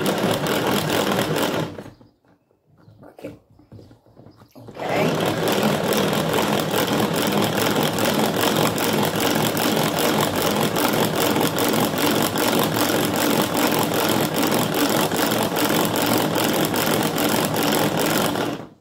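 Tupperware Saetta Chef hand-cranked whisk being turned fast as it whips egg whites: its plastic gears give a loud, even, whirring rattle of rapid clicks. The cranking stops about two seconds in and starts again nearly three seconds later.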